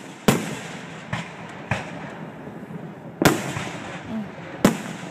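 Aerial firework shells bursting: about five sharp bangs at uneven intervals, the loudest ones about a third of a second in, about three seconds in and near the end, each trailing off in echo.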